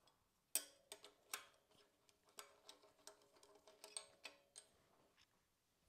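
Faint metallic clicks, about a dozen at irregular intervals, from an Allen key working loose the crank bolt of a square-taper bicycle crank.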